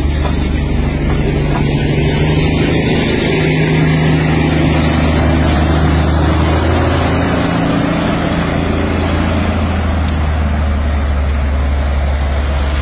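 Narrow-gauge diesel locomotive's engine running steadily as it hauls the train, a deep drone whose note shifts a little about halfway through.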